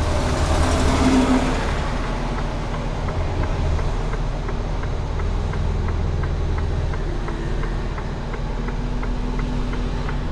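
Diesel engine of a Mercedes Antos 18-tonne lorry idling, heard from inside the cab, with a swell of hiss in the first couple of seconds and a quick, regular ticking throughout.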